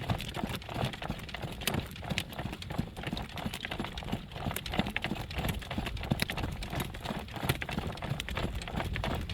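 A driving horse's hooves clip-clopping along a road in a steady run of hoofbeats.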